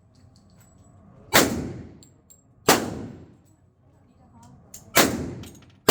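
Submachine gun fired on semi-automatic: three single shots, each a sharp crack that dies away over about half a second, with a fourth shot right at the end.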